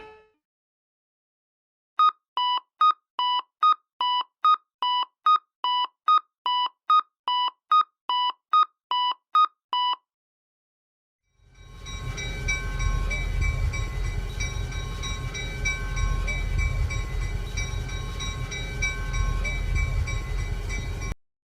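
Japanese railroad crossing warning bell ringing its two-tone 'kan-kan', two pitches alternating at about two strokes a second, for about eight seconds. After a short gap, a train passes with a steady low rumble for about ten seconds and cuts off suddenly.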